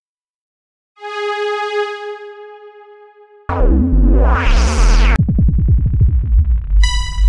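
Dubstep music. After a moment of silence a sustained synth tone plays. About three and a half seconds in, a heavy bass drop hits with a rising sweep, then gives way to a pulsing low bass.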